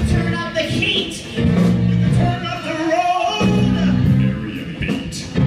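Live band of piano, bass and drums playing an upbeat song, with male lead and backing voices singing over it.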